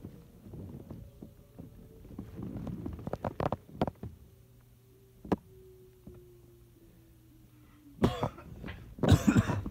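A person coughing several times near the end, the loudest sounds here, after quiet rustling and a few small clicks. A faint steady tone slides slowly downward in pitch underneath.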